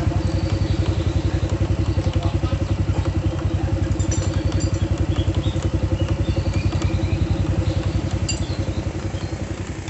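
Honda Supra's single-cylinder four-stroke engine idling with a steady, rapid beat and light scattered ticking on top, fading away near the end. The engine runs rough and clattery, which the owner puts down partly to a noisy cam chain (rantai keteng) and mostly to other sources.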